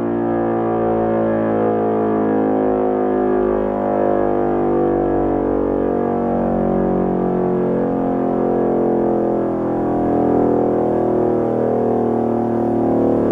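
Hörmann E57 mechanical siren, an Elektror-built unit driven by a 400 V three-phase motor, sounding a loud, steady full-speed tone with a slight waver, its pitch holding level throughout.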